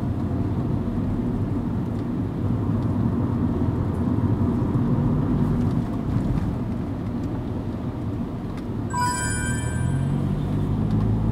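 Steady low road and engine noise inside a car driving along city streets. About nine seconds in, a brief high electronic chime sounds for about a second.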